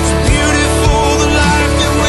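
Background music: a pop song with instruments playing.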